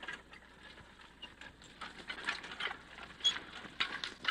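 A mule working in plow harness: irregular light clinks, rustles and soft knocks from the harness and its steps, with a couple of short high chirps near the end.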